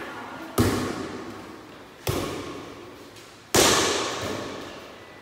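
A light air volleyball being hit by players' hands three times, about a second and a half apart, each hit a sharp smack that echoes in a large hall; the third hit is the loudest.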